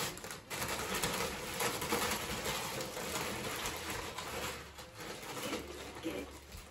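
Gift-wrapping paper crinkling and tearing as a dog tugs at a wrapped present with its mouth, a dense crackle that eases off in the last second or so.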